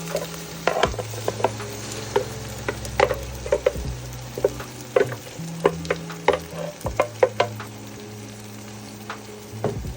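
Oil and tomato paste sizzling in a cooking pot while a spoon stirs in the blended pepper-and-tomato mixture, with many short clinks and scrapes of the spoon against the pot.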